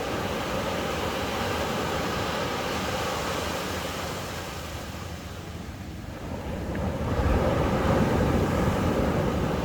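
Ocean surf washing on a beach: a steady rush of waves that eases about halfway through, then swells louder as the next wave breaks and washes in.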